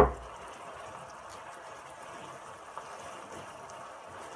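Chicken, onion and freshly added shredded cabbage frying in a pan: a steady, quiet sizzle. A sharp knock sounds right at the start.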